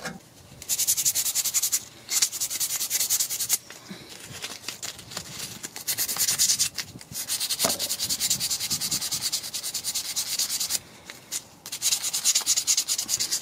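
Brake caliper slide pin being scrubbed clean by hand, rapid back-and-forth rubbing strokes in several spells with short breaks between them.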